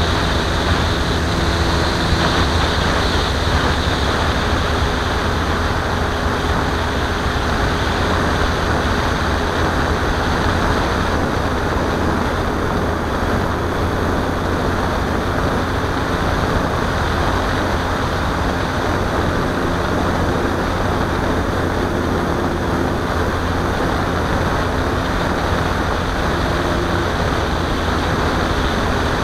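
Steady rush of airflow over the onboard microphone of a radio-controlled model plane in flight, with the faint hum of its motor and propeller underneath, its pitch shifting a little.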